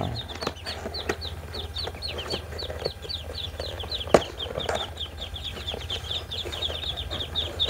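Week-old Jumbo Blitar Muscovy ducklings peeping inside a ventilated cardboard shipping box: a rapid, unbroken stream of high, short peeps, several a second. Cardboard is handled as the box is opened, with a sharp snap about four seconds in.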